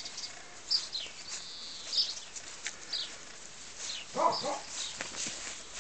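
Tibetan mastiff puppies playing: short, high falling squeaks and yelps about once a second, and two short barks about four seconds in.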